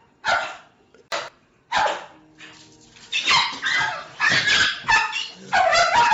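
A dog barking: a series of short barks, a few spaced out at first, then coming closer together in the second half.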